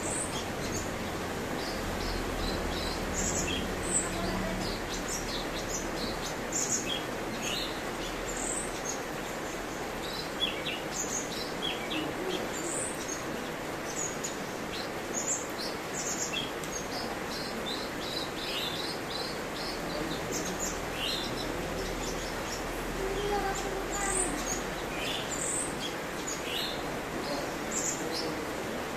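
Cucak cungkok songbird singing: a steady stream of short, quick, high chirps and whistled notes over a faint background hiss.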